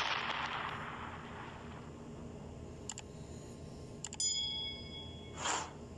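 Subscribe-button animation sound effects: a burst of noise at the start that fades over about a second and a half, a mouse click, then another click with a short bell chime, and a quick whoosh near the end.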